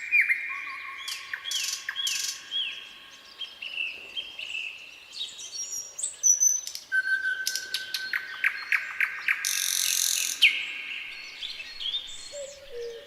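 Nightingale singing a run of varied phrases: repeated down-slurred whistled notes, then a rapid series of sharp notes about eight seconds in, followed by a harsh rasping phrase.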